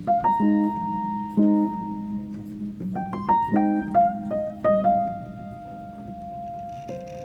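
Background piano music: single notes and chords struck and left to ring, some held for a second or more.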